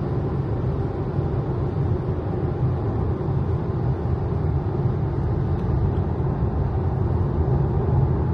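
Steady low road and wind noise inside the cabin of a Tesla Model Y electric car cruising at motorway speed: tyre rumble on the asphalt and wind over the body, with no engine note.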